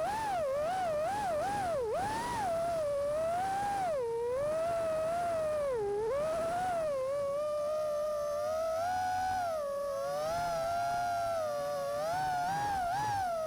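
FPV racing drone's motors and propellers whining, the pitch sliding up and down as the throttle changes.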